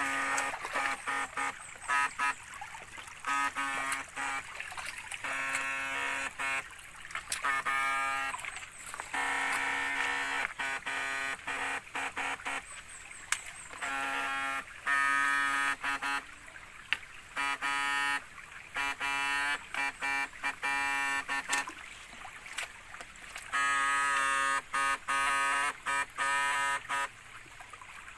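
A backpack electrofishing shocker's inverter buzzing in repeated on-off bursts of one to two seconds as the current is switched into the water. Running water trickles over stones underneath.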